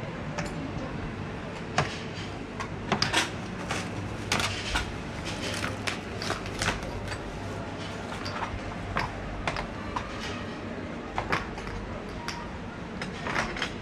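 Ceramic bowls and dishes clinking and clattering irregularly as they are handled and set down, over a steady low hum.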